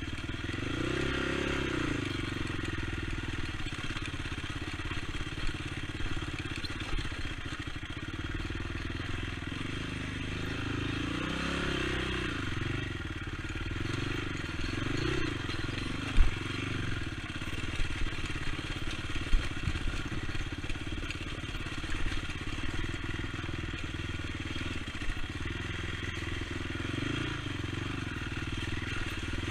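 Honda TRX450 ATV's single-cylinder four-stroke engine running on a ride, the revs rising and falling again and again. A few sharp knocks come through in the second half.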